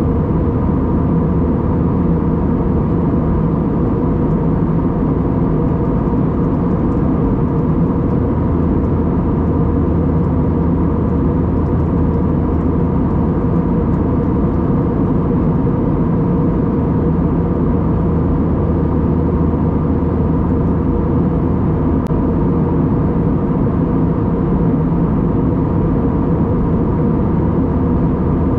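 Steady cabin drone inside an Airbus A320-232 airliner in flight: a constant rush of engine and airflow noise with a low, even hum and a few steady tones that does not change.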